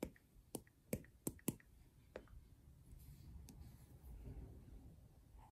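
Stylus tip tapping on a tablet's glass screen while typing on its on-screen keyboard: a quick run of light, sharp taps, five in the first second and a half, then two more spaced out, followed by a faint rustle.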